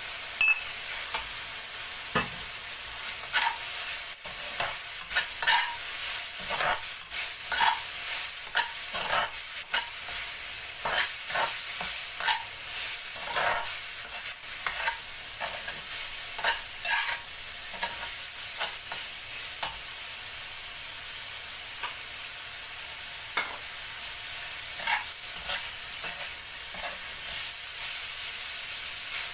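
Sliced pork and black fungus sizzling in hot oil in a stainless steel wok, with a metal spatula stirring and scraping against the pan. The scraping strokes come thick and irregular through the first half and grow sparser later, over a steady sizzle.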